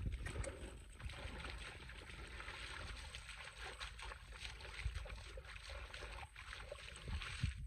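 Shallow muddy water splashing and trickling, with scattered small clicks and occasional low thumps.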